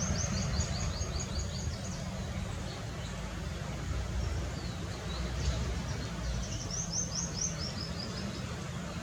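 A songbird sings two phrases, each a quick run of high notes stepping down in pitch and lasting about two seconds, one at the start and one near the end. A steady low rumble runs underneath.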